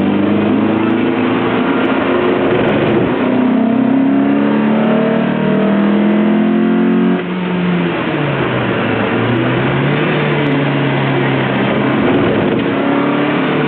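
Lotus Elise engine accelerating hard, its pitch climbing for several seconds, then a sudden drop a little past halfway as the throttle comes off, before it rises again. Steady wind and tyre noise runs underneath.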